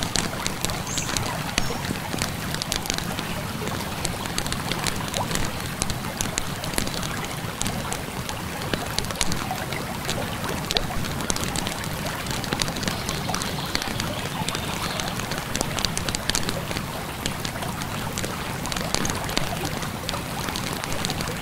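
Campfire crackling, with many irregular small snaps, over the steady rush of a flowing river.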